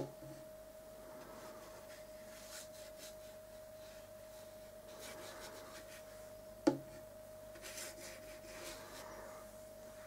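Soft, faint swishes of a wet watercolour brush being stroked across paper to wet it, in a few patches, with a knock at the start as the brush meets the water pot and a sharp click about two-thirds of the way through. A steady faint tone hums underneath.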